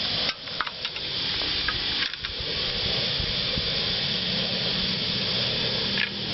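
Steady background hiss, with a few light clicks and knocks in the first couple of seconds.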